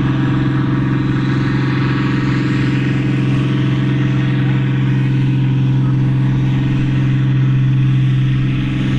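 John Deere farm tractor's diesel engine running hard and steady under full load while it drags a weight-transfer pulling sled, its pitch holding level.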